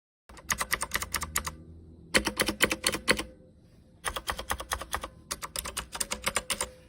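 Typing on a DIERYA T68SE mechanical keyboard: four quick bursts of crisp keystroke clicks, several a second, with short pauses between them.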